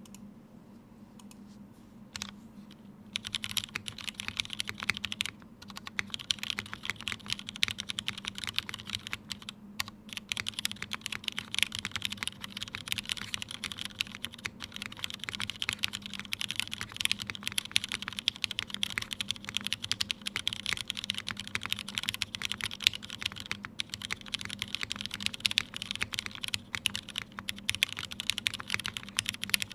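Continuous typing on a Tomo mechanical keyboard fitted with lubed Cherry MX Black linear switches in an aluminium top-mount plate and GMK Serika keycaps. The typing starts about three seconds in, after a single keystroke, and keeps up a fast, steady clatter.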